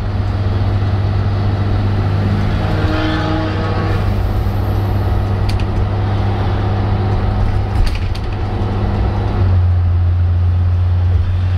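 Scania L113 bus's 11-litre six-cylinder diesel engine heard from inside the cabin while cruising on a motorway: a loud, steady low drone with a few short rattles. A brief rising whine comes a few seconds in, and near the end the engine note deepens and grows louder.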